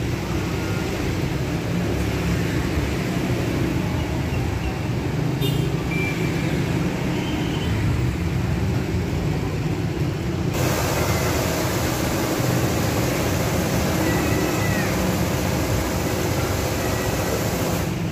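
A road vehicle driving along, with steady engine and road rumble. About ten seconds in, a sudden louder hiss of rushing air or road noise joins it and stays.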